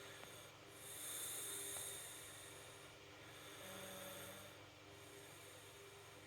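Faint snoring: a hissing breath about a second in, then a second, lower-pitched snoring breath near the middle, with a faint steady hum underneath.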